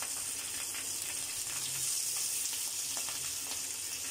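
Pabda fish frying in hot oil in a nonstick pan: a steady sizzle with small scattered crackles.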